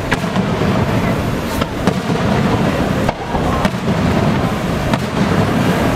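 Aerial fireworks shells bursting: a string of sharp bangs, irregularly spaced about a second apart, over a steady rush of breaking surf.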